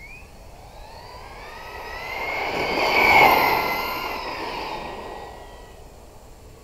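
JLB J3 Speed RC car's brushless electric motor whining at speed as the car passes, the whine rising in pitch as it approaches and falling away as it goes, loudest about three seconds in.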